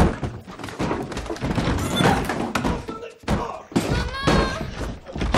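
A man forcing his way through a wooden door: a loud thud right at the start, then a run of heavy thumps and knocks against the door, with strained voices.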